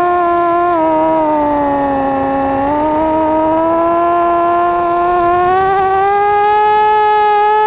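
FPV quadcopter's electric motors and propellers whining, heard from its onboard camera. The pitch sags about two seconds in, then climbs again from about three seconds on.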